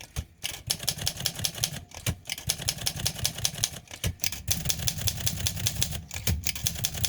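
Olympia SM3 manual typewriter being typed on quickly: even keystrokes about eight a second, broken by short pauses about every two seconds. It is a test typing to check line spacing on a freshly cleaned platen roller.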